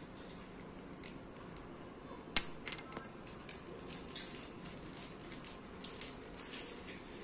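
Clear plastic packaging crinkling as it is handled, in short scattered crackles, with one sharp click about two and a half seconds in.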